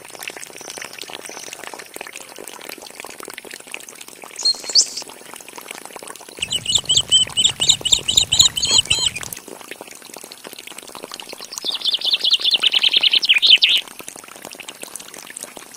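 Water pouring steadily from the outlet tube of a miniature DC-motor water pump onto wet ground. Over it, birds chirp: a quick run of chirps about six seconds in, and a rapid trill near the end.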